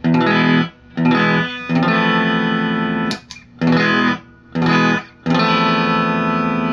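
Electric guitar through a tube guitar amp, playing a riff of strummed chords broken by short stops, the last chord left ringing for a couple of seconds.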